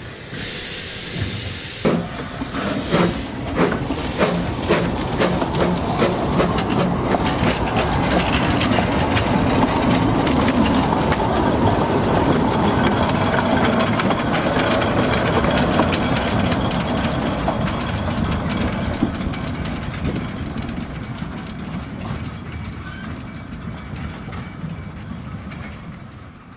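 Narrow-gauge steam train, with Hunslet 0-4-2 saddle tank Trangkil No.4 hauling wooden coaches. A loud hiss of steam fills the first two seconds. Then come a run of sharp exhaust beats and the steady rumble and clickety-clack of wheels on rail, fading away over the last several seconds.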